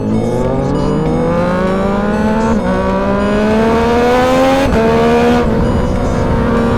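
Sport motorcycle engine accelerating hard, its pitch rising steadily. There is a quick upshift about two and a half seconds in and another near five seconds, after which the engine holds a steady note.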